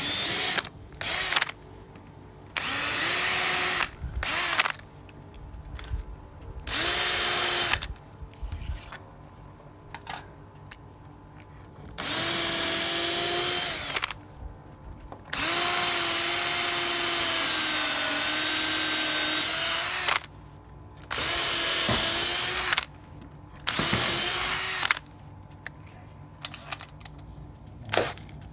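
Electric drill running in repeated bursts, from brief blips to runs of several seconds, its motor pitch rising at each start and then holding steady, as it drills pilot holes into very hard wood.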